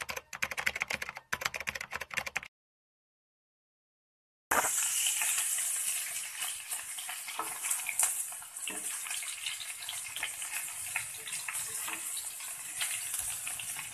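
Salmon steaks sizzling as they fry in oil in a pan, with a few light taps and scrapes of a spatula and tongs against the pan. The sizzling starts about four and a half seconds in, after a short gap of silence.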